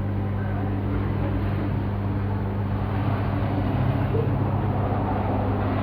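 Steady low hum with a fainter buzz an octave above it, unchanging throughout.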